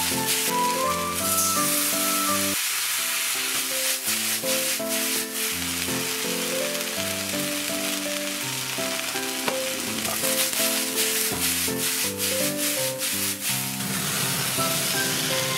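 Shredded potato and green pepper sizzling as they are stir-fried in a wok, the sizzle swelling and easing at several points, with scattered sharp clicks, over background music with a steady melody.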